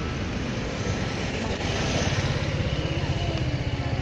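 Street traffic: motor vehicles driving past, a steady engine and tyre rumble that grows a little fuller about halfway through.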